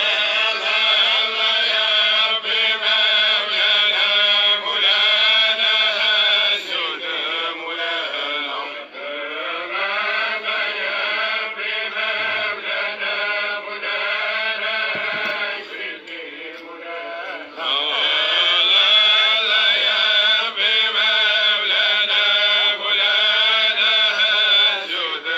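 A man's voice chanting in long, wavering melodic phrases, with short breaks between phrases about a third and two thirds of the way through.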